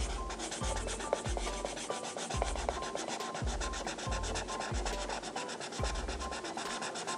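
Felt-tip marker rubbing on paper in quick, even back-and-forth colouring strokes, over soft background music with a recurring low beat.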